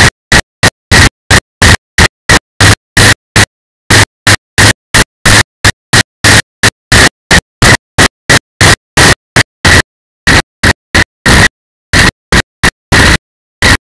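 Harsh, distorted static cutting in and out about three times a second, with dead silence between the bursts: a corrupted, glitching camera audio track rather than any real sound of the ride.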